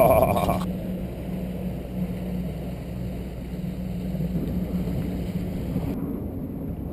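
Small boat's motor running steadily under way, with a low rumble and the rush of water and wind. About six seconds in the sound turns abruptly duller.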